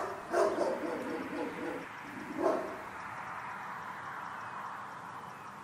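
A dog barking: a bark right at the start, another just after, and a third about two and a half seconds in, over a steady outdoor hiss.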